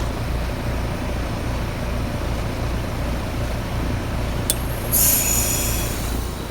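A Trane XR14 3-ton heat pump outdoor unit running at the end of its defrost cycle: a steady low hum, a sharp click about four and a half seconds in, then a loud hiss lasting about a second, the refrigerant whoosh as the reversing valve shifts back to heating.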